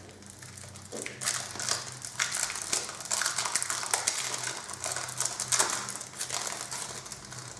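Packaging of a masking set crinkling as it is opened by hand, a run of irregular crackles starting about a second in.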